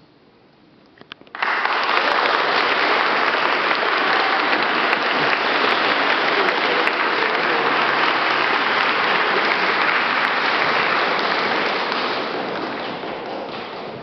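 Audience applause: a few scattered claps, then about a second in the whole audience breaks into clapping all at once and holds it, tapering off near the end.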